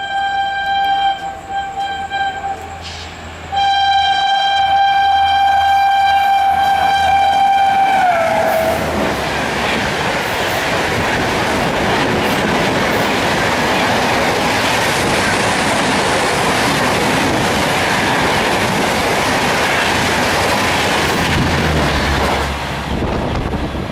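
A WAP-7 electric locomotive's horn sounding two long blasts, the second dropping in pitch as the locomotive passes at speed. After that comes the loud, steady rush of the Rajdhani's coaches speeding past, easing off slightly near the end.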